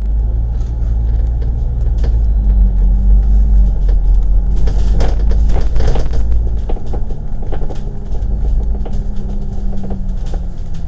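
Double-decker bus in motion, heard from inside on the upper deck: the engine's steady low drone with rattling of the bus body. The deepest part of the drone eases off about two-thirds of the way through.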